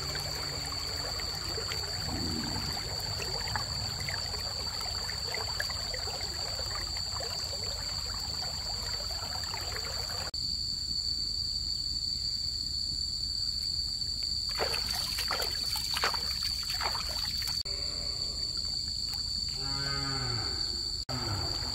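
Cattle lowing: one long call falling in pitch near the end, over a steady high-pitched whine, with a few knocks about two-thirds of the way through.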